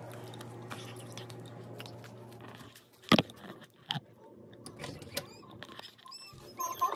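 A steady low mechanical hum that cuts off suddenly about two and a half seconds in. Then come two sharp knocks as the ceramic mug is handled, followed by a few faint clicks.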